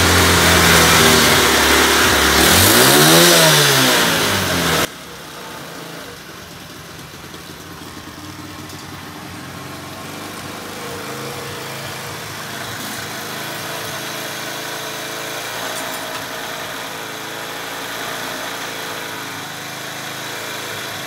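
70cc single-cylinder four-stroke motorcycle engine, newly fitted with twin carburettors, running loud and revved up and back down. About five seconds in it drops abruptly to a quieter, steady idle, which runs on while the carburettor is being adjusted.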